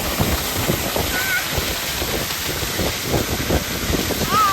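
Hot-spring waterfall of warm river water pouring and splashing steadily onto rocks. A short warbling bird call comes about a second in, and another near the end.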